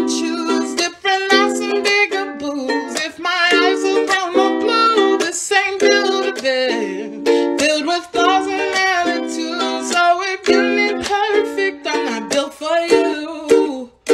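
A woman singing a pop-style song over a strummed ukulele.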